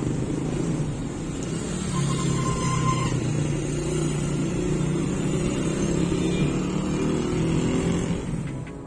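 City street traffic: cars and motorbikes running steadily on a busy road, a continuous low engine hum.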